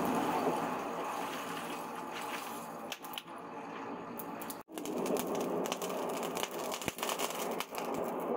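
Charcoal forge fire burning hard under forced air: a steady rushing with crackling and popping from the coals. It cuts out for an instant about halfway through.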